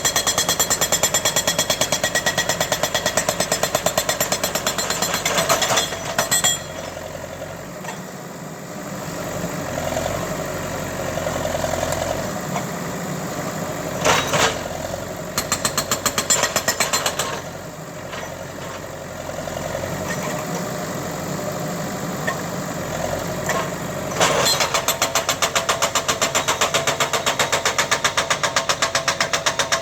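Tractor diesel engine running hard with a fast, even knocking beat. After about six seconds it eases to a quieter, smoother run, with a short loud clatter about halfway through. It picks back up to the fast beat for the last six seconds.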